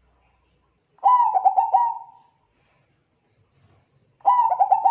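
Zebra dove (perkutut) singing: two bursts of its cooing song, each a quick run of about five coo notes lasting about a second. The first comes about a second in, and the second starts near the end.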